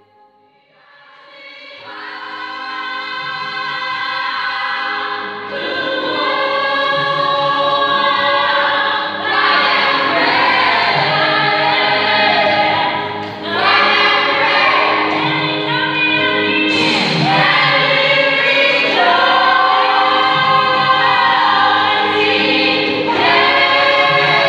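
Gospel choir of mostly women's voices singing in harmony. It enters softly about a second in and swells to full volume over the next few seconds.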